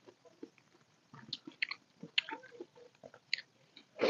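Close-up eating sounds of dal khichdi eaten by hand: scattered short wet chewing clicks and mouth smacks, with a louder bite at the very end as a handful goes into the mouth.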